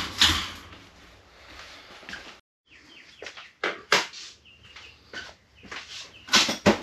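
Scattered knocks and clicks of things being handled and set down, with a few short bird chirps in between. It opens on a sharp knock, and the sound drops out completely for a moment about two and a half seconds in.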